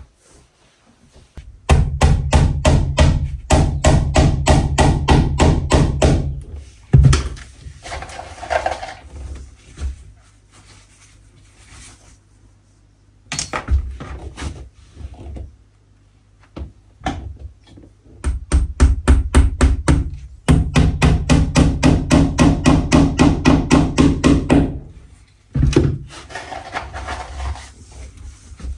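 Rapid hammer blows, about five a second, in two long runs of several seconds each, with scattered single knocks between.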